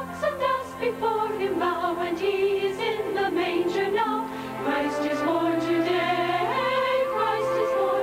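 Choir singing with sustained instrumental accompaniment; about six and a half seconds in, the voices slide up to a long held note.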